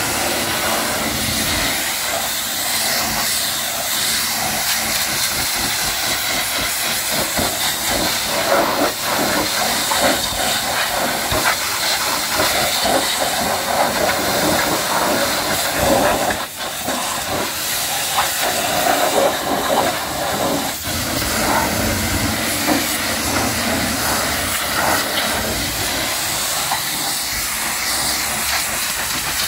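High-pressure washer jet spraying water onto a truck, a loud steady hiss with splashing whose texture shifts as the jet moves; it dips briefly about halfway through.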